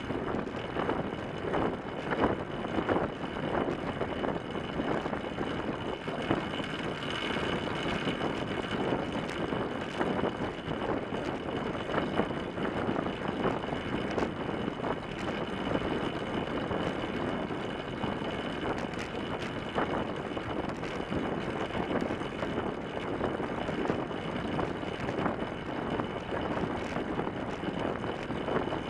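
Track bicycle rolling fast on a wooden velodrome track, heard from a camera clamped to its fork. A steady rush of wind and tyre noise runs throughout, with frequent small knocks and rattles and a faint steady high whine.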